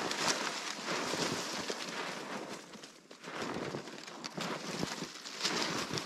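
Footsteps crunching through snow, a quick, uneven run of crackly crunches that eases off for a moment about halfway through.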